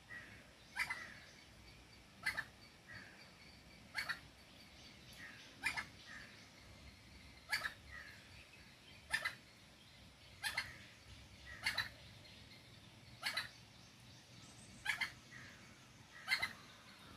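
Sri Lanka junglefowl hen calling: a short, sharp call repeated about eleven times, roughly every one and a half seconds, often followed by a softer second note.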